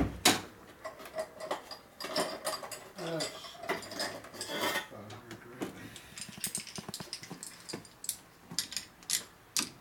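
Steel honing tools and mandrels being handled at a honing machine and its mandrel rack: irregular metallic clicks, clinks and knocks, with a sharp knock just after the start.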